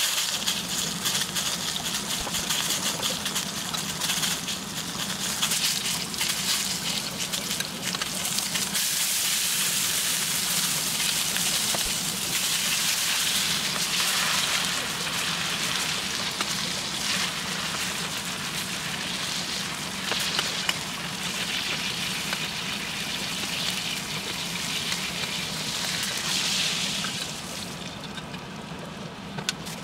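Dry-aged steak sizzling in a stainless steel frying pan with butter: a steady frying hiss full of crackle, over a steady low hum. The sizzle fades near the end as the pan is lifted off the heat.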